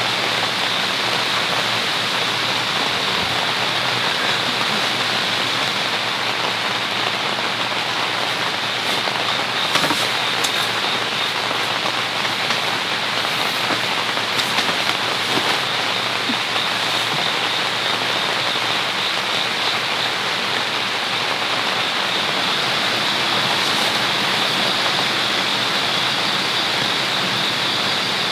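Heavy rain falling steadily on a tent that has no rain fly, heard from inside as a dense, even hiss. A few sharper drop hits stand out about a third to halfway through.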